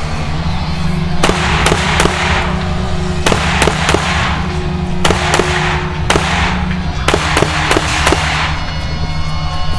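A rapid string of rifle shots, about two a second, each followed by an echoing tail, over background music.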